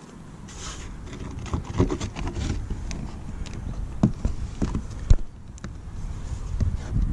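Hands working at the plastic rear bumper of a caravan, peeling old double-sided tape out of the number-plate recess: rustling and tearing, with scattered clicks and knocks, two sharper knocks about four and five seconds in.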